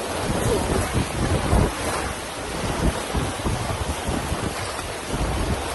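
Fast whitewater rushing and churning around an inflatable raft, with wind buffeting the microphone in irregular low thumps.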